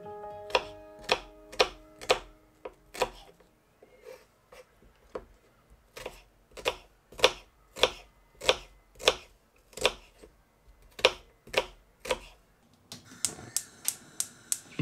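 Kitchen knife slicing an onion on a wooden cutting board, each cut ending in a sharp tap of the blade on the wood, about two a second. A quicker run of cuts comes near the end.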